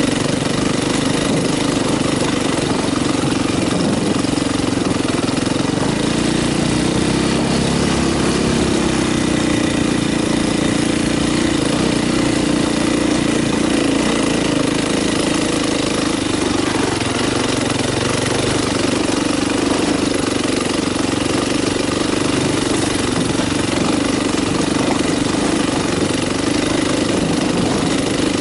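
KTM dirt bike engine running steadily under way, the revs rising slightly about a quarter of the way in and then holding.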